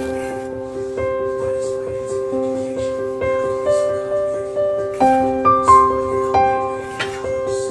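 Background piano music, gentle notes and chords in an even, unhurried rhythm.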